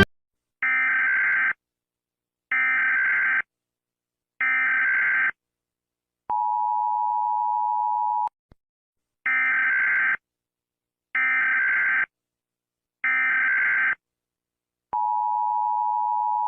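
Emergency Alert System alarm: three short screeching digital data bursts of the SAME header, a steady two-tone attention beep of about two seconds, then three more data bursts and the two-tone beep starting again near the end.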